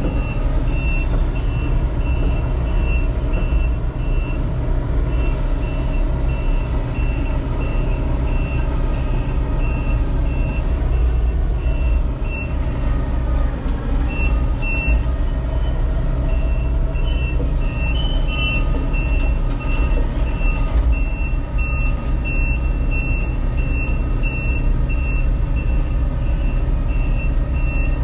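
Case excavator's diesel engine running under load as the machine tracks onto a trailer, heard from inside the cab, with its travel alarm beeping at about two beeps a second. The beeping stops briefly twice near the middle, when the tracks pause.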